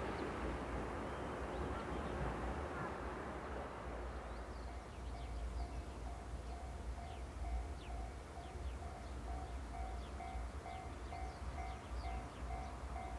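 Running noise of a passing train fading away, then a railway level-crossing alarm starts ringing about four seconds in, an even repeating electronic ding.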